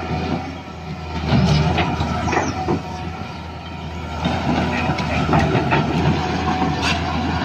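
Small electric motors and plastic gearboxes of radio-controlled toy construction vehicles whirring steadily, with scattered clicks and rattles.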